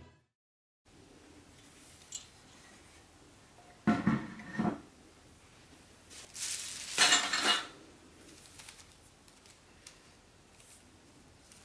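Objects being handled on a hard surface over quiet room tone. There is a short clattering knock about four seconds in, and a longer noisy scrape lasting about a second around seven seconds in.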